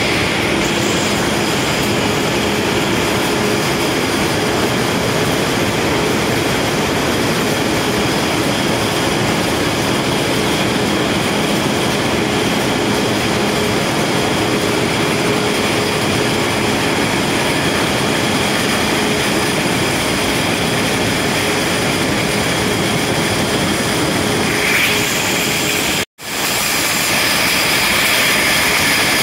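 Loud, steady din of an aluminium can production line: conveyors and machines running continuously, a dense noise with faint steady hums. The sound drops out for an instant near the end.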